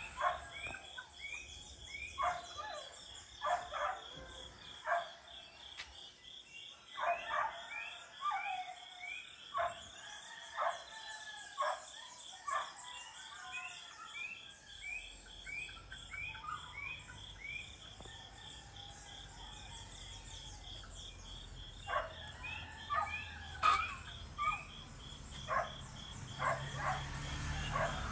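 Dawn chorus: birds giving short repeated calls over a steady, pulsing insect trill. A low rumble comes in about halfway through.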